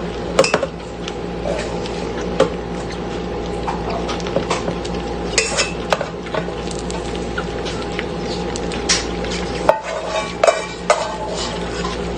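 A spoon knocking and scraping against a cooking pot as cooked sticky rice is worked into thick coconut caramel, with scattered clicks and a few sharper knocks about ten seconds in, over a steady hum.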